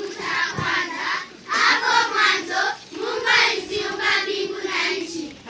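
A group of children singing together, with long held notes.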